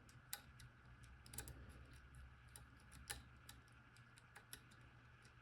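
Faint, irregular small clicks of a disc-detainer pick turning the rotating discs inside an Abloy Classic padlock, feeling each disc for its gate.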